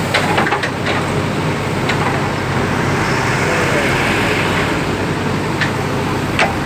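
Diesel engine of heavy machinery running steadily, with several sharp metallic knocks, a cluster of them in the first second and more near the end, and a hiss that swells and fades around the middle.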